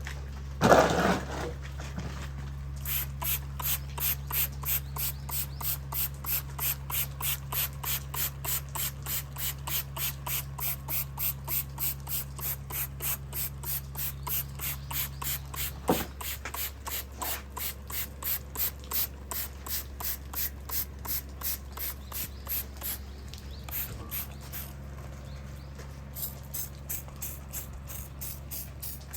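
Rhythmic hand rubbing strokes, as in sanding or scouring a part, about two a second, with a short pause near the end. A sharp burst of noise comes about a second in, and a steady low hum runs underneath.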